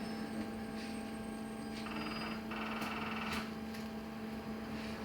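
Inside a LiAZ-6274 electric bus on the move: a steady electric hum from the drive with a few light clicks and rattles, and a brief buzzing about two to three seconds in.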